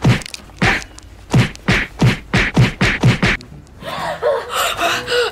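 A rapid run of about nine sharp smacks, around three a second: a beating with hands or slipper on a person's head and back. About four seconds in the smacks stop and a voice cries out in a wavering wail.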